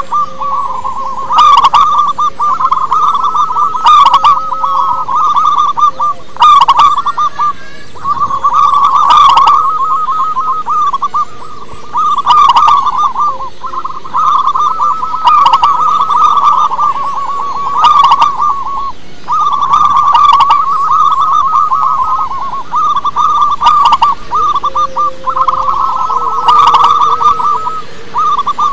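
Zebra dove (perkutut) cooing: long phrases of rapid staccato notes a few seconds each, repeated with short breaks between them. Sharp clicks come every second or two.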